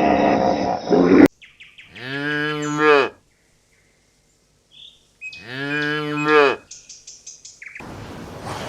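A cow mooing twice: two long calls about three seconds apart, each rising then falling slightly in pitch. Before them, a different loud pitched sound cuts off abruptly about a second in, and a windy hiss starts near the end.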